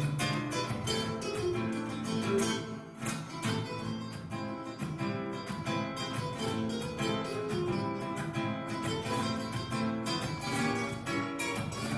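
Acoustic guitar music, quick plucked and strummed notes.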